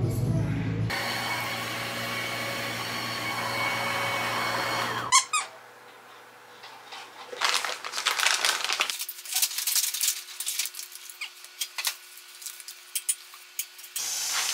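A gym cardio machine runs for about four seconds with a steady whirring noise and a faint whine. After a sharp knock, utensils and chopsticks click and scrape against a wooden bowl as food is placed into it.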